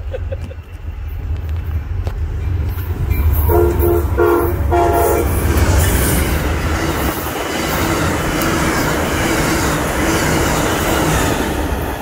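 Amtrak passenger train sounding its horn in three short blasts about three and a half to five seconds in, over the rumble of its approaching locomotive. It then rushes past close by, with wheels clacking on the rails and rushing car noise that eases a little near the end as the train moves away.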